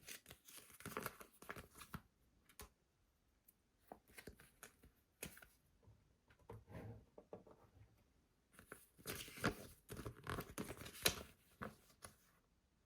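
Hands handling packaging or the fan's plastic parts: irregular rustling and clicking in several short bursts separated by pauses, with the loudest stretch near the end.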